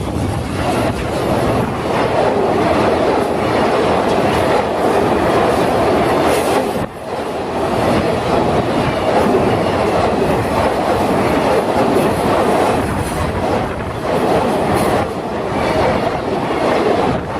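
A JR Freight container train hauled by an EF210 electric locomotive passing close by at speed. The wheels clatter and rumble over the rails in a steady loud roar of wagons, with one brief lull about seven seconds in.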